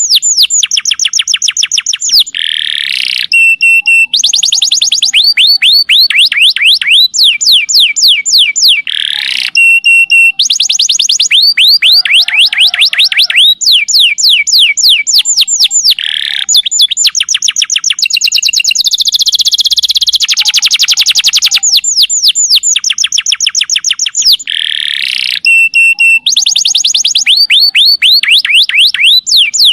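Domestic canary singing long, loud runs of rapid trills: fast repeated falling whistled notes, switching to a new trill pattern every second or two with only brief breaks.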